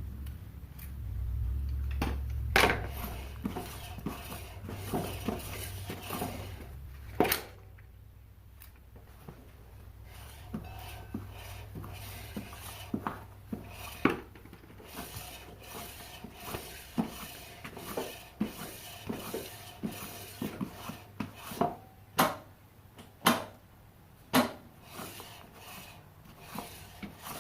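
Metal hand tools and mini bike parts clinking and knocking, irregular sharp clicks with pauses between them, as work goes on at the bike.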